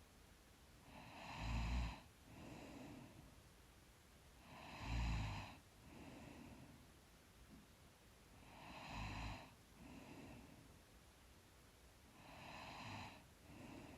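A woman asleep, breathing slowly and deeply with a light snore on each in-breath: four breaths about every four seconds, each in-breath followed by a quieter out-breath, the first two snores the loudest.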